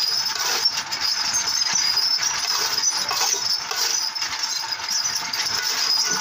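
Motor-driven stirrer of a puffed-rice mill running, its shaft churning rice in an iron kadai over a clay oven: a steady hiss and rattle, with small ticks and clinks throughout.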